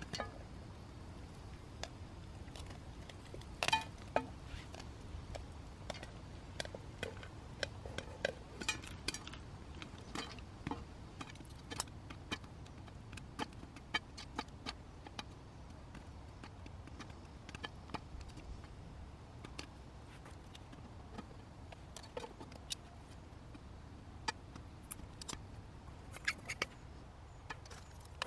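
Popcorn kernels popping in a pot on a gas camping stove: sharp, irregular pops about one or two a second, over a low steady rumble.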